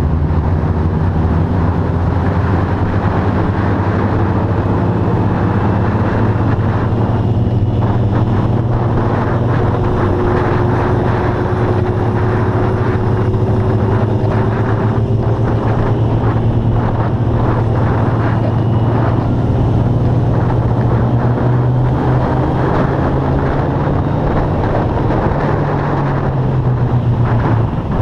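Sport motorcycle engine running at a steady cruise, heard from the bike itself, its note drifting gently up and down with the throttle, with wind noise on the microphone.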